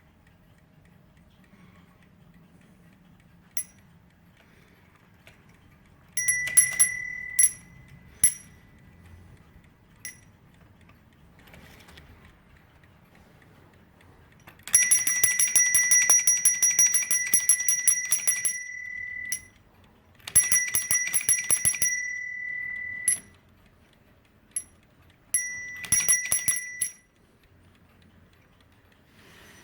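Alarm bell of an antique Junghans HAC house alarm clock ringing. A few single strikes and a short cluster come first, then three bursts of rapid hammer strikes on the bell; the first burst is the longest and loudest, and each following burst is shorter.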